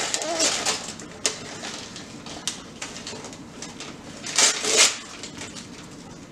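Paper gift bag and tissue paper rustling and crinkling as a present is unwrapped. The loudest crinkling comes in two quick bursts about four and a half seconds in.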